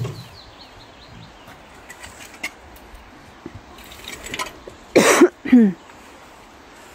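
Light scraping and tapping of a long-handled tool working loose soil, with faint birdsong. About five seconds in come two short loud calls, the second falling in pitch.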